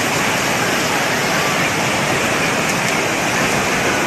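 Floodwater from a flash flood rushing through in a steady, loud torrent.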